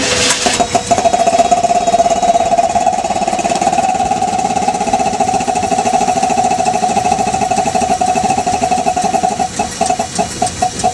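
An International MV-404 V8 gasoline engine catches right away and runs steadily on a small charge of gasoline poured into the carburetor, with a rhythmic popping from its air compressor, which is disconnected from the brake system. Near the end it stumbles and dies as the fuel runs out.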